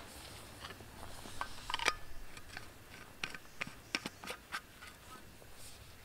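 Handling noises: a run of small clicks and taps, most between about one and a half and five seconds in, as things are handled by hand.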